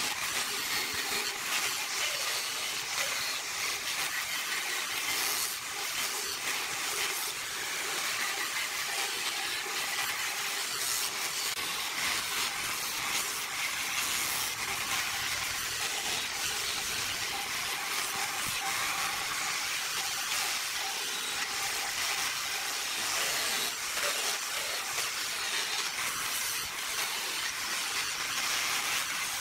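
Angle grinder fitted with a sanding drum, running steadily as it sands the rim of a wooden vase: a constant high hiss of abrasive on wood over a faint steady motor tone.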